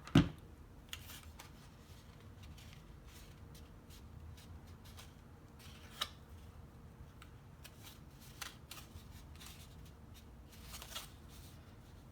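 Cardstock paper petals being handled, rustling and crinkling with scattered small clicks. There is one loud thump just after the start and a sharp click about halfway through.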